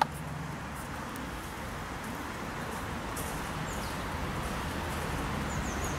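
Steady outdoor background noise with a low hum under it, with a brief click at the very start and no distinct event.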